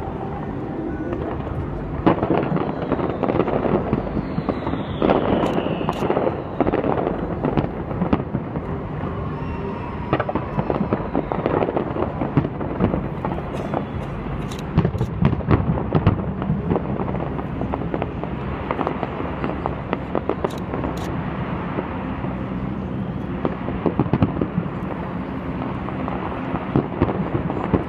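Large aerial fireworks display: many sharp bangs and crackling bursts going off in quick succession, one after another without pause.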